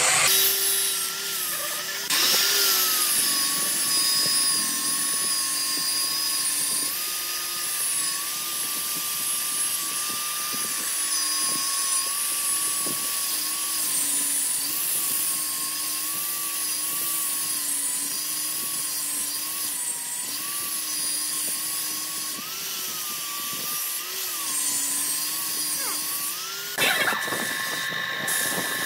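Angle grinder with a sanding disc running against a spinning wooden vase blank on a lathe, its motor whine dipping and rising in pitch as the disc is pressed on and eased off. About 27 seconds in the grinder stops, leaving a steadier motor hum.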